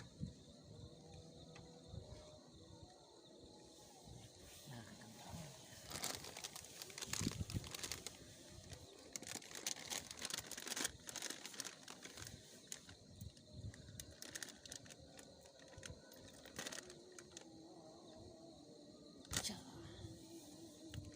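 Faint crinkling and rustling with scattered sharp clicks and knocks, of things such as packaging and camp cooking gear being handled, busiest in the middle of the stretch.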